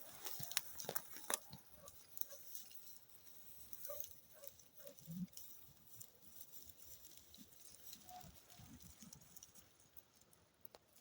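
Faint patter and scattered sharp clicks from a small herd of Nubian goats moving about, with a few short, faint sounds in between.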